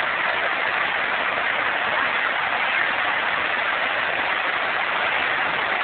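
River water rushing over rapids, a steady even hiss with no breaks.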